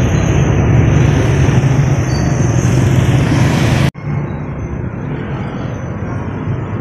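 Steady road-traffic noise of motorcycles and tricycles, heard from a moving bicycle with wind rushing on the phone microphone. About four seconds in, the sound breaks off abruptly and carries on quieter.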